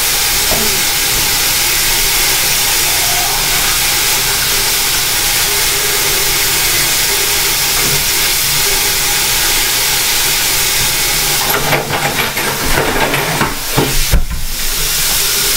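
Kitchen tap running into the sink in a steady hiss. Near the end the flow breaks up, with clattering and a thump.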